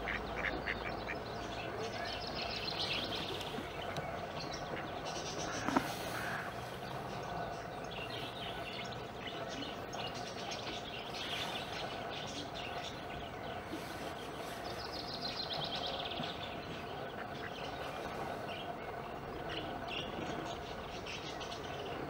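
Waterbirds calling at a pond: scattered short calls, one louder call about six seconds in, and two spells of high trilling calls, over a steady low hum.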